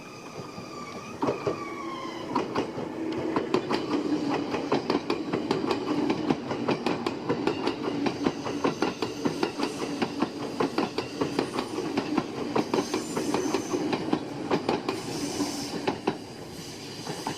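A train running past, its wheels clattering rapidly over the rail joints over a steady rumble. A few high tones glide down in pitch in the first couple of seconds.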